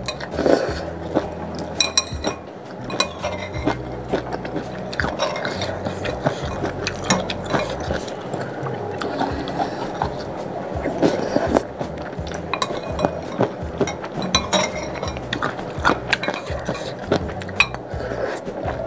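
Slurping noodles and spicy broth from a metal spoon, with the spoon clinking again and again against a ceramic bowl.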